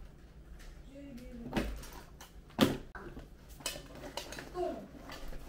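Household clatter: a few sharp knocks and clinks, the loudest about two and a half seconds in, with faint voices.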